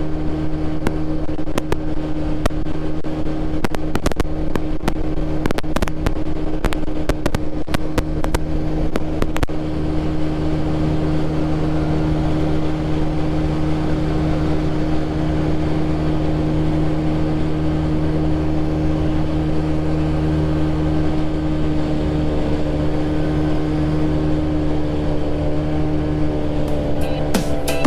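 Motorcycle engine running at a steady drone while cruising at about 90 km/h, with wind noise over it. Through the first ten seconds the recording is peppered with sharp crackling clicks, a popcorn-like popping fault in the camera's audio.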